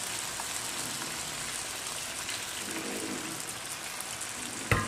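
Chicken and potato pieces sizzling in a hot pan as hot water is added, a steady rain-like hiss. A sharp knock near the end.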